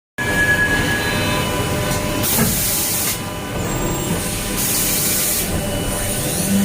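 CNC machine running with steady whining tones, broken twice by a hiss lasting about a second.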